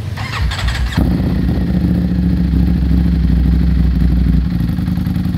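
Ducati Streetfighter V4S's 1103 cc V4 cranked by its starter, catching about a second in, then running at a steady idle through its Arrow exhaust.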